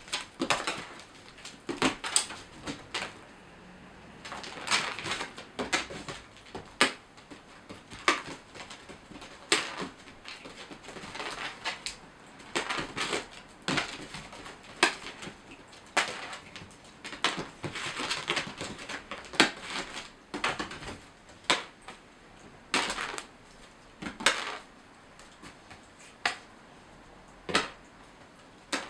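Irregular knocks, taps and rustles of cats playing with a feather wand toy: paws landing and scrabbling on a hard floor, sometimes several in quick succession.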